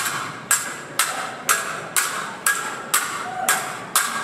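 Theatrical fencing swords clashing in a steady rhythm, about two strikes a second, each strike followed by a short ring.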